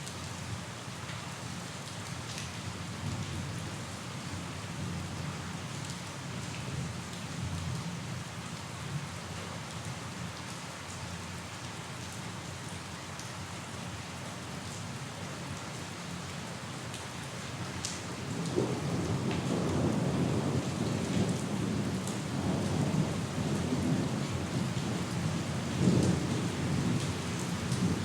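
Steady rain falling, with scattered drop ticks. About two-thirds of the way through, a rolling rumble of thunder builds and grows louder to the end.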